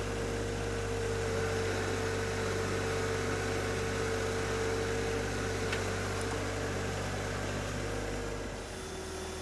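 John Deere 1025R compact tractor's three-cylinder diesel engine running steadily while it drags a box blade through soil, a constant drone with a held tone. It drops a little and shifts near the end.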